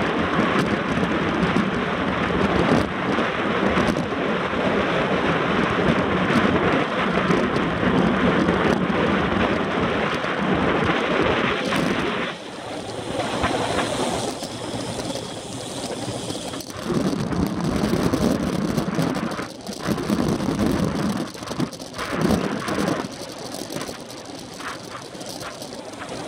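Wind rushing over the microphone of a handlebar-mounted camera on a road bike at speed, with road and tyre noise underneath. Heavy in the first half, it eases about halfway through and then comes and goes in gusts.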